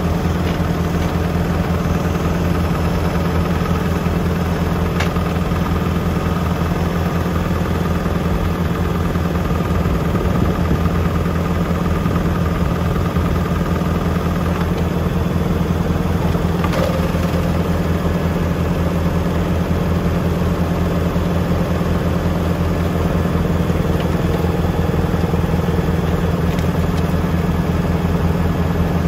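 Tractor engine running steadily at a constant speed, with a few faint clicks or knocks.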